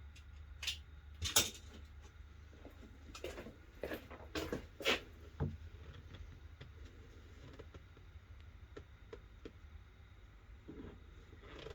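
Light knocks and clicks from handling wooden shelf parts and a glue bottle during a glue-up, several close together in the first half, then only faint scattered ticks.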